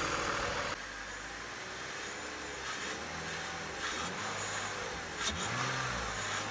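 2001 BMW Z3's engine idling for under a second, then the sound drops abruptly to a quieter, steady background with a few faint clicks.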